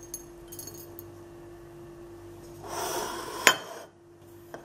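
Light handling of crockery on a table: a brief rustle, then a single sharp clink of a ceramic dish about three and a half seconds in, over a steady low hum.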